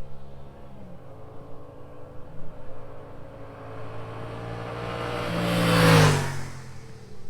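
Yamaha MT-07's parallel-twin engine on its stock exhaust approaching at steady revs, growing louder until it passes close by about six seconds in, its pitch dropping as it goes away.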